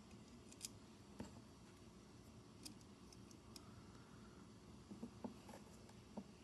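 Faint, scattered clicks and taps of small plastic parts being handled and pried as a car power window switch is taken apart, with a little cluster of clicks near the end.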